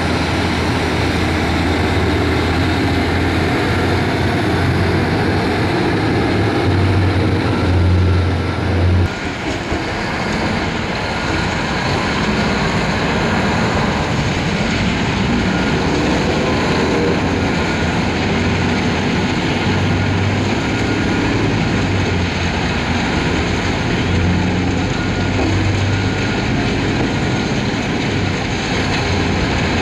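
Heavy mine machinery: the diesel engine of a loaded Hitachi EH1100 haul truck running at low speed over the steady din of an ore screening and conveyor plant. The sound changes abruptly about nine seconds in.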